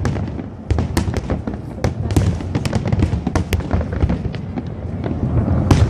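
Fireworks going off in quick succession: a continuous low rumble of bursts with many sharp cracks and pops, a brief lull about half a second in, and the loudest crack near the end.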